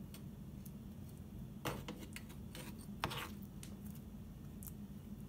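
Metal spoon scraping and clinking against a metal baking pan while spreading glaze over a cake, with two louder scrapes a little under two seconds in and at about three seconds, and faint small ticks between, over a steady low hum.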